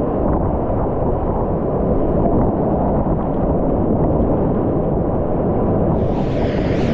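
Whitewater rapids rushing around a kayak: a loud, steady, dull roar of churning water with little hiss.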